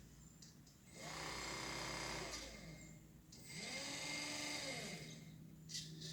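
Electric trolling motor driven through an ESC from a joystick, spun up and back down twice: a whine that rises in pitch and then falls, each run about a second and a half long.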